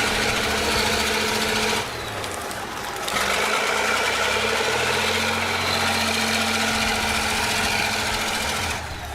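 Stump-grinding machine running hard: a steady engine and the busy mechanical noise of its cutter. It drops back briefly about two seconds in, then picks up again.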